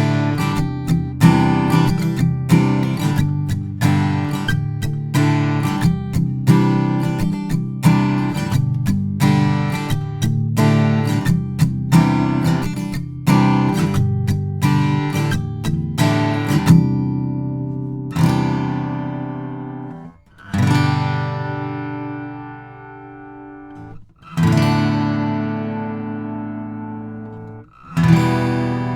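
Taylor 324e Grand Auditorium acoustic guitar, with a mahogany top and Tasmanian blackwood back and sides, strummed in a steady rhythm, picked up by a Bluebird condenser microphone blended with the guitar's Expression System 2 pickup. Past the middle the rhythm stops, and four single chords are struck and each left to ring out.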